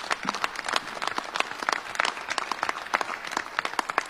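Senators applauding: many hands clapping in a dense, uneven patter.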